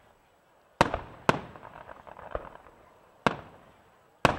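Fireworks display: four sharp bangs of bursting shells, two close together about a second in, one past the three-second mark and one just before the end, with a softer pop in between. Each bang trails off in an echo.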